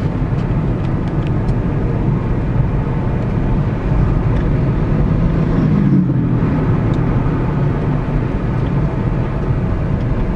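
Car driving along a road: steady engine and tyre rumble.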